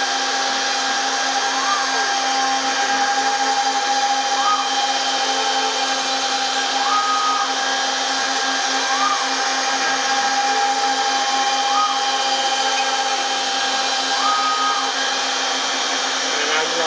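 Homebuilt CNC router's spindle turning a 4 mm three-flute cutter at 16,500 rpm while pocketing MDF: a steady, even whine. Over it a higher tone rises, holds briefly and falls back about every two to three seconds as the machine moves along its path.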